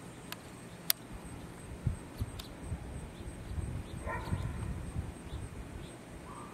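Outdoor ambience while filming the tornado: a steady low rumble of wind on the microphone, a few sharp clicks in the first couple of seconds, and a brief pitched call, possibly from an animal, about four seconds in.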